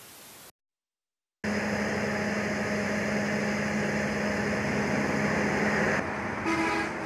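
Diesel locomotive engine running steadily at idle, a constant drone with a steady low hum. It starts abruptly after a moment of silence, and a short higher tone sounds near the end.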